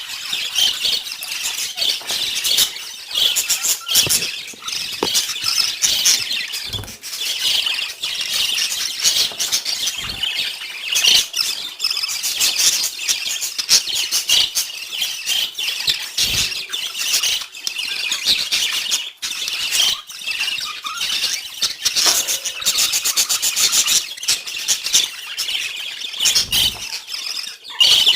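Several pet budgies (budgerigars) chattering and chirping without a break, a dense, high-pitched warble of rapid chirps, squeaks and clicks.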